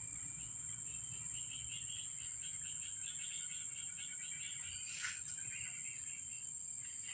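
Insects chirping in fast, even pulses over a steady high-pitched whine, with one sharp click about five seconds in.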